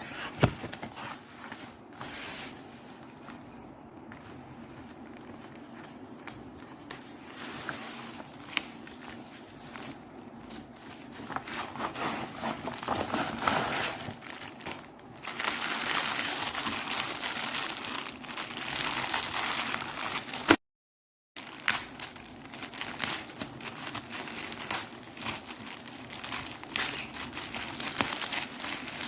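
Plastic packaging crinkling and crackling as it is handled and opened, loudest about halfway through, with a brief break before the crinkling resumes.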